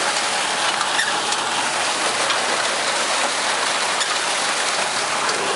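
Tractor-drawn potato harvester at work: a steady rattling rush of soil running through the machine, with faint scattered ticks.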